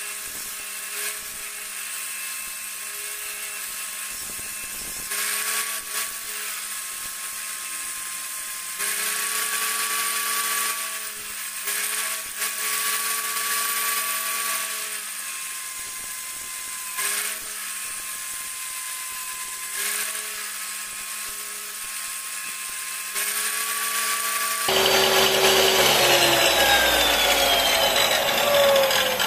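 Electric power tool running at a steady high pitch. Its tone dips and its loudness shifts every few seconds as it takes load. About 25 seconds in, it gives way abruptly to a louder, harsher sound with a falling whine.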